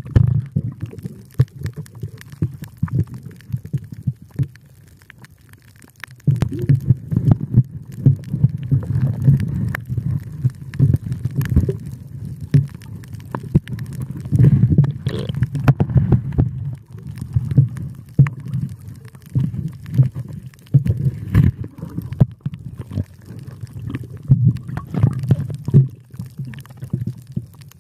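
Muffled underwater rumbling and sloshing of water around a submerged camera, with scattered sharp clicks and knocks. It is quieter for the first several seconds, then grows louder and more turbulent.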